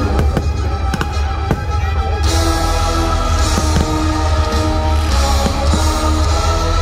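Orchestral fireworks-show music playing loud, with firework bursts going off over it as sharp pops, most of them in the first two seconds.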